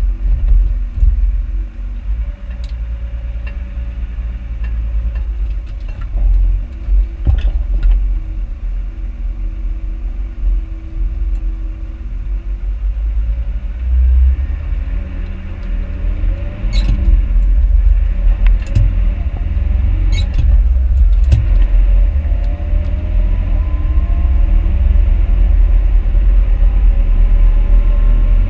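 Tractor engine running with a heavy low rumble close to the microphone, with a few sharp knocks and rattles. From about halfway through it gets louder and the engine note climbs.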